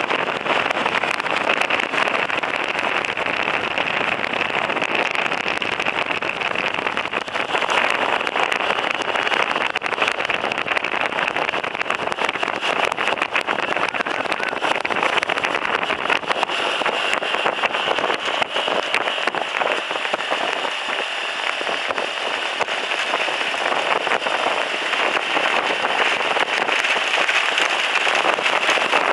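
Steady rushing noise of a vehicle driving along a dirt racetrack beside harness-racing horses pulling sulkies, with tyres and engine blending into one even hiss.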